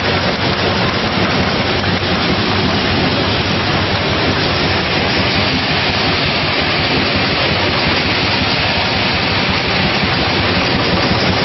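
A 24,000-bottle-per-hour bottling combiblock running at production speed, its blow moulder, rotary filler and capper together making a loud, steady, dense machine noise with no clear beat.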